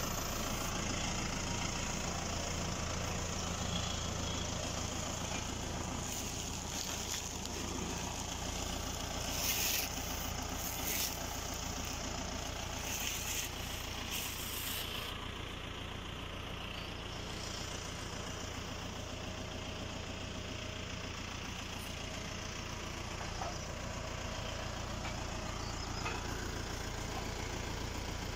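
Deutz-Fahr Agrofarm 85 tractor's diesel engine idling steadily, with a few brief sharp clinks around the middle.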